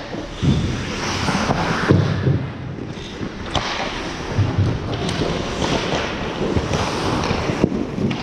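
Ice hockey play on the rink: skates scraping and carving the ice under a steady hiss of noise, with irregular sharp clacks and thumps of sticks and puck.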